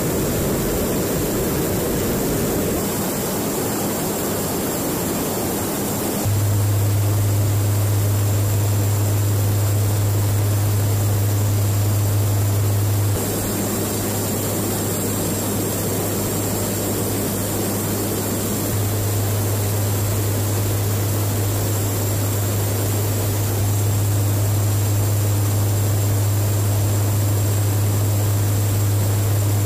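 Cabin drone of a KC-130J Hercules tanker's turboprop engines and propellers in cruise: a steady rushing roar with a low, even propeller hum. The level steps up and down abruptly a few times, about six, thirteen and nineteen seconds in.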